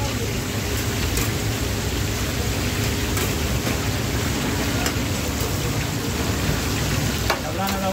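Hot oil sizzling steadily in a large, wide frying pan where chapli kababs are frying.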